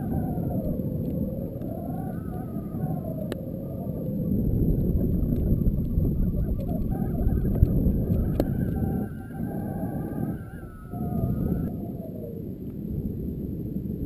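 Rushing air buffeting a GoPro camera riding in a weather-balloon payload as it climbs, heard as a dense low rumble. A wavering tone slides up and down over it and fades out near the end, with a couple of sharp clicks from the payload.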